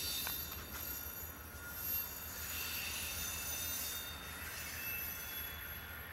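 Amtrak Southwest Chief passenger train pulling slowly out of the station, its steel wheels squealing in several steady high-pitched tones over a low rumble.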